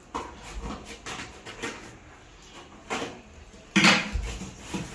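Handling of the talking cactus toy's packaging box: a few separate knocks and scrapes, the loudest about four seconds in.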